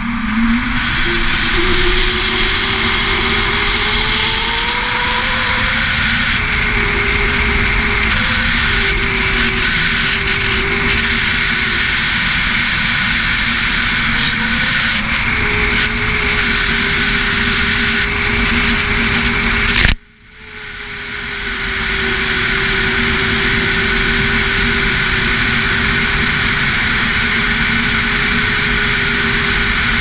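Steady rush of wind on the head-mounted camera's microphone during a wingsuit flight, with a wavering hum running through it. About twenty seconds in there is a sharp click and a sudden drop, then the wind noise builds back up over a couple of seconds.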